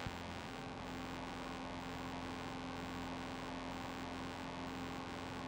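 Faint steady hum with hiss on a light aircraft's headset intercom audio in flight.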